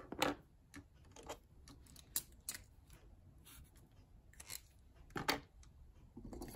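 Light desk-handling noises: scattered short clicks and brief paper rustles as cash and a paper savings tracker are handled, with a rattle of markers in a glass pen cup near the end.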